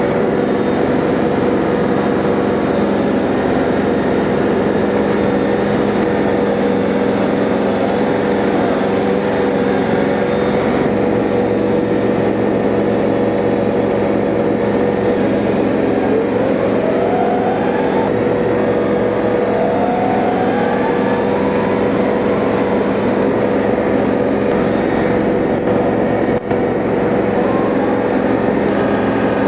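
LS XG3140H compact tractor's diesel engine running steadily as the loader digs and the tractor drives off, with two rising whines a little past halfway.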